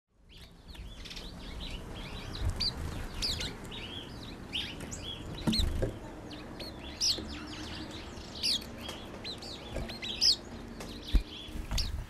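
Many small birds chirping and twittering in quick, overlapping short calls, with a few brief low thumps underneath.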